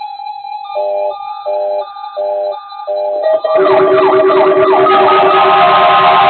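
Electronic emergency-alert test signal: four short beeps over a steady tone, then about three and a half seconds in a louder jumble of overlapping alarm tones with falling sweeps, siren-like.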